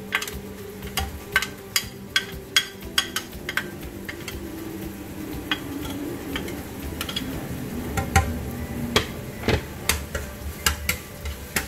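Wooden spatula stirring and clicking against a non-stick wok as diced garlic and onion stir-fry in hot oil, with a faint sizzle. The clicks come irregularly, several a second at first, then sparser, with the loudest knocks past the middle.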